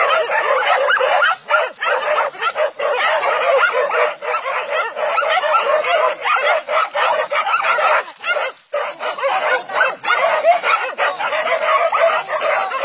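A pack of hunting dogs barking and yelping without letup, many at once, as they hold a wild boar at bay.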